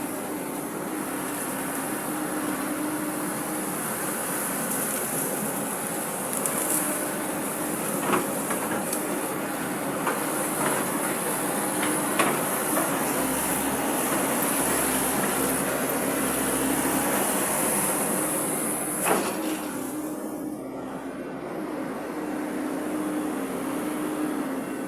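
Hydraulic excavator running steadily while digging, its engine giving a constant hum, with a few sharp knocks and clanks from the bucket and arm.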